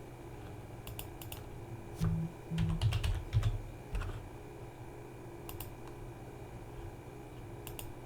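Computer keyboard keystrokes: a few scattered sharp key clicks, with a cluster of louder, duller knocks about two to three and a half seconds in.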